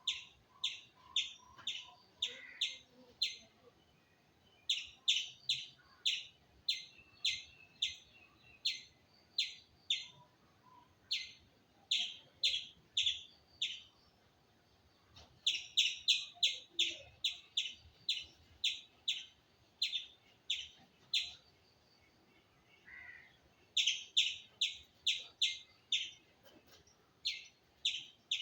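Indian palm squirrel calling with short, sharp, high chirps repeated about twice a second. The calls come in runs of several seconds, separated by brief pauses.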